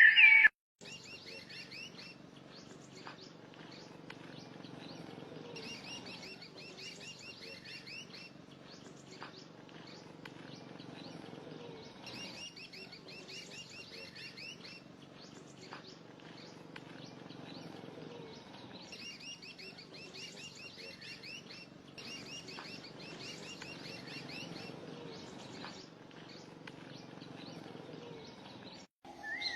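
Birds chirping in rapid, high-pitched runs over a low steady background hum, the chirping swelling in clusters that recur every few seconds.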